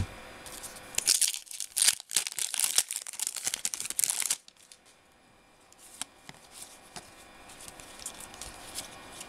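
A Topps trading-card pack wrapper being torn open and crinkled by hand, a dense crackle lasting about three seconds from a second in. It then drops to faint handling noise with a few soft clicks.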